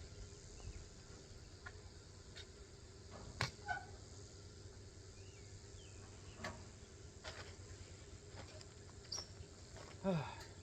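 Faint outdoor ambience of insects chirping steadily, broken by a few light clicks and knocks. The sharpest click comes about a third of the way in.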